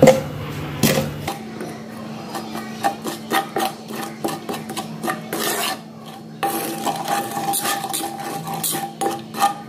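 Slotted steel spatula scraping around a kadhai as spices are stirred in ghee, many quick scraping strokes several to a second, roasting the masala on a slow flame.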